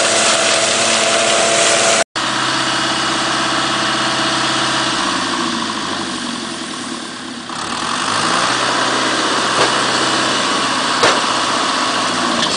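Tractor engine running steadily, driving a tractor-mounted corn silage harvester, with a rushing noise of the machine working. After a cut about two seconds in, the engine runs on as the high-lift hopper is tipped to dump its load, its speed sagging and picking up again about midway.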